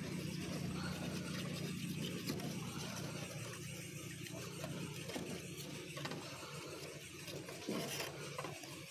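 Light clicks and handling noise of small parts as a rubber motor is hooked onto a rubber-band model plane, over a steady low hum that fades out near the end; the sharpest click comes shortly before the end.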